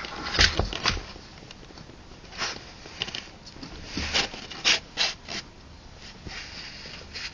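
Young puppies moving about, with an irregular series of short scratchy rubbing and clicking noises from their claws and bodies on the surface under them.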